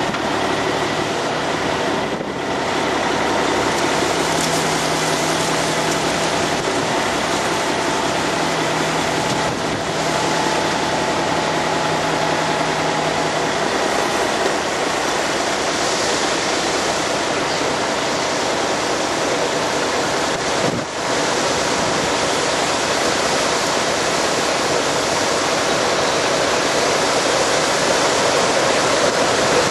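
A 980 self-propelled forage harvester with a 12-row head chopping corn for earlage: a steady, dense rush of engine, cutterhead and crop flow, with a low hum through the first half.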